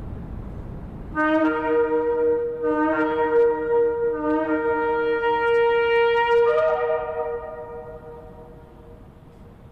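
Shofar blast: a ram's-horn call starting about a second in, breaking between a lower and a higher note. It is held for about five seconds, then shifts and dies away in reverberation. Before it there is a low rushing noise.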